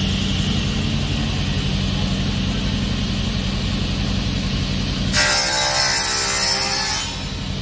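SICAR 3200 sliding-table panel saw running with a steady motor hum. About five seconds in, the blade cuts through a board for about two seconds, a loud, harsh cutting noise over the hum, then the saw goes back to running free.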